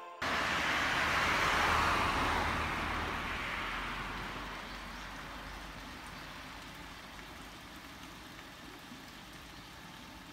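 Road traffic noise: a passing vehicle's tyre hiss, loudest a second or two in and fading away over several seconds, over a steady low rumble.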